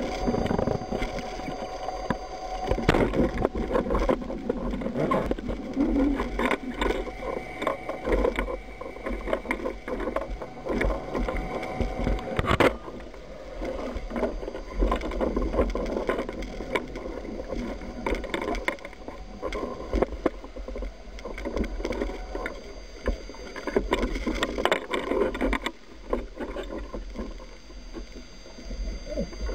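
Underwater sound picked up by a camera on a speargun: a steady rush of water around the housing, crossed by many scattered clicks and knocks, with a sharp knock about thirteen seconds in.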